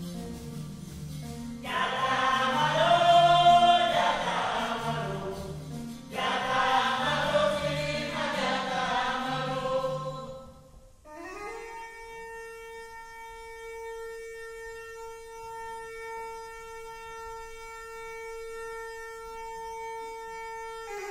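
A choir sings two swelling phrases over a low repeating bass pattern. About halfway through the voices stop and a wind instrument holds one long, steady note.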